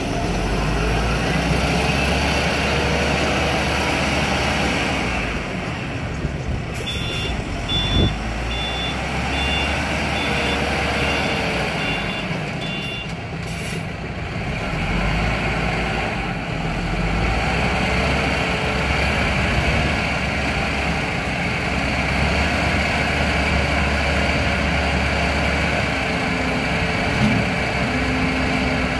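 The diesel engine of a Plus Power VTCM-1500 self-loading concrete mixer running and revving up and down while its hydraulic loading shovel is worked, with a whine that rises and falls in pitch. A reversing alarm beeps about seven times near the middle, and a single thump comes about eight seconds in.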